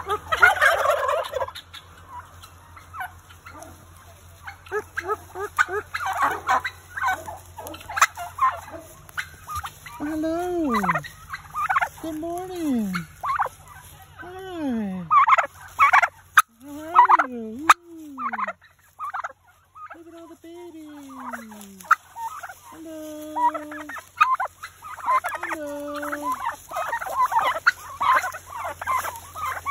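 A flock of turkeys gobbling and calling close up. There are rapid rattling gobbles, and through the middle a run of drawn-out calls that slide down in pitch, one every second or two.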